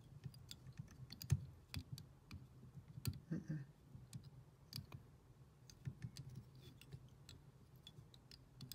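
Faint, irregular light clicks and ticks of a thread bobbin and thread working against a hook in a fly-tying vise, as thread is wrapped in figure eights around dumbbell eyes.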